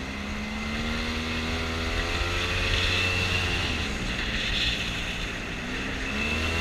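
An offroad vehicle's engine running under load as it climbs the track. Its pitch rises over the first couple of seconds, drops about four seconds in, then climbs again near the end.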